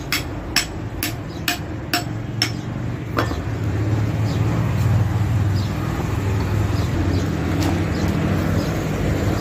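Sharp metallic taps on a vehicle axle hub, about two a second, stopping about three seconds in. A steady low engine hum runs underneath.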